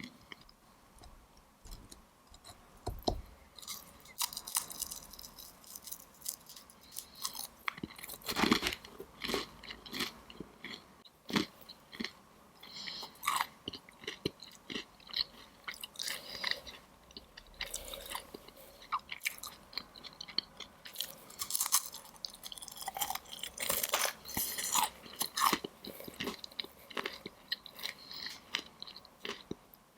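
Close-miked chewing and crunching of crisp Chinese desserts, with irregular crackly bites, loudest about eight seconds in and again near the middle of the last third.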